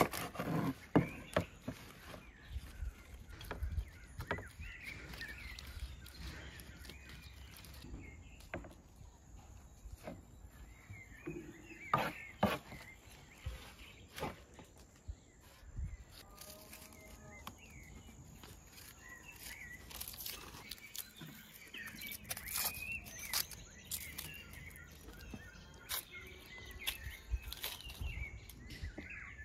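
Cleaver chopping leafy greens on a wooden cutting board, a quick run of knocks at the start, then scattered knocks and clatter as the greens are handled. Birds chirp throughout.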